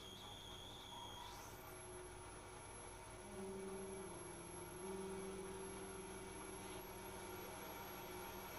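Quiet live electronics giving out steady sine-like tones. A high tone cuts off about a second and a half in. Low sustained tones come in about three seconds in and step in pitch a couple of times, over a faint hiss.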